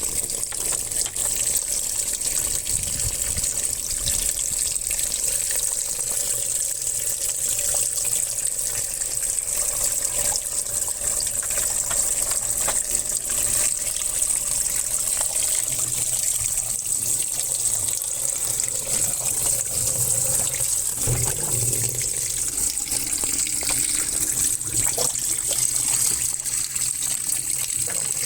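Steady gush of water running into the tub of a Muji M-W42D 4.2 kg fully automatic washing machine as it fills.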